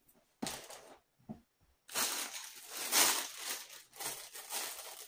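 Clear plastic packaging crinkling as it is handled: a couple of short rustles, then steady crinkling from about two seconds in.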